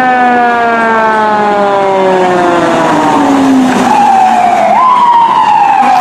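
Fire engine siren wailing: one long, slowly falling tone, then a second wail about four seconds in that dips, rises sharply and falls again.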